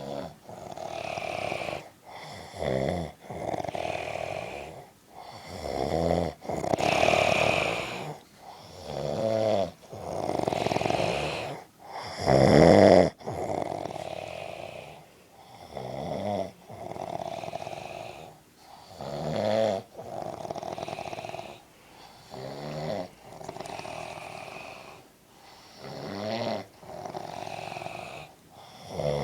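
A man snoring steadily in his sleep, about one breath every three seconds: each breath is a buzzing, fluttering snore and a breathy rush of air. The loudest snore comes near the middle.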